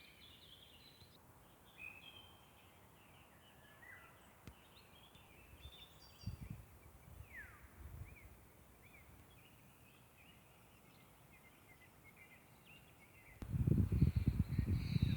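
Several songbirds singing and chirping, with short varied phrases and one clear falling whistle about seven seconds in. Near the end a loud low rumble comes in and is the loudest sound.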